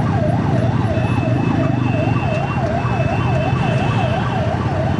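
Electronic emergency-vehicle siren, its pitch sweeping up and down quickly and evenly, about two and a half cycles a second, over the steady low hum of engines in traffic.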